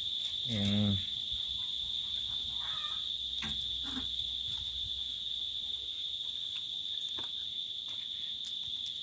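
Insects droning in one steady high-pitched tone without a break, with a brief voice sound just under a second in and a few faint clicks.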